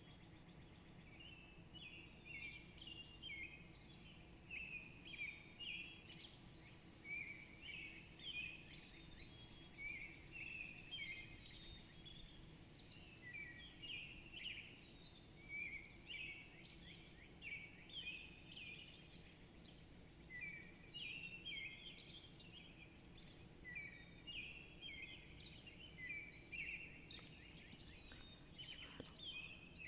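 Small songbirds chirping faintly in short, quick phrases, about one every second or two, over a low steady background hum.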